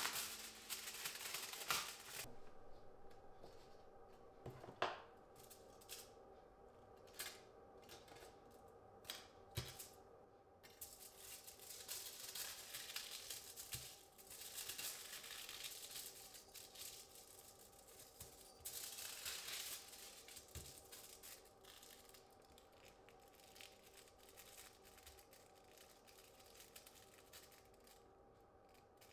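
Aluminium foil torn off a roll, then soft crinkling, rustling and light clicks as the sheet is smoothed flat and squeezed by hand into a small wad.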